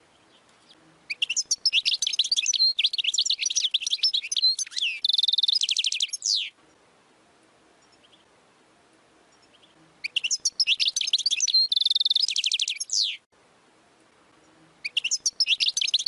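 European goldfinch song: bouts of fast, high twittering, each ending in a quick buzzy trill and a falling slur. There are two full bouts of a few seconds each with pauses between, and a third begins near the end.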